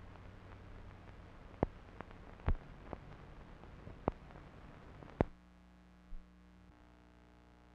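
Worn optical film soundtrack running out: faint hiss and hum broken by sharp clicks and pops. Just after five seconds in, the loudest click comes and the hiss drops away, leaving only a faint steady hum.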